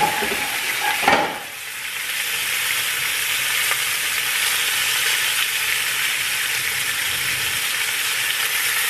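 Bacon-wrapped asparagus frying in a skillet: a steady sizzle. There is a short knock about a second in, and the sizzle briefly drops just after it.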